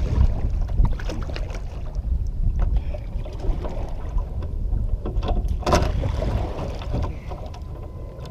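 Wind rumbling on the microphone over knocks, rustles and water sounds of a kayak being paddled and handled, with one louder sudden noise a little before six seconds in.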